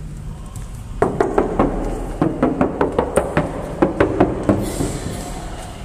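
A hand knocking on the sheet-metal body panels of a Suzuki S-Presso: a quick, uneven run of about fifteen knocks, about four a second, starting about a second in and stopping after three and a half seconds. The knocks test the panel thickness, whether the body is thin 'tin-can' steel.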